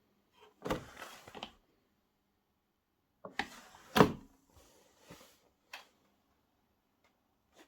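Two short clusters of knocks and rustling, the louder one with a sharp thud about four seconds in, then a few faint clicks, with near silence between.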